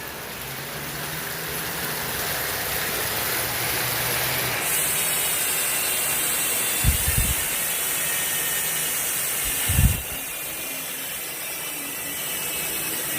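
Mavic Cosmic Elite wheel's hub freewheeling while the wheel spins, giving a steady, high-pitched buzzing hiss of the freehub ratchet. It grows stronger from about four and a half to ten seconds in, with two short knocks along the way.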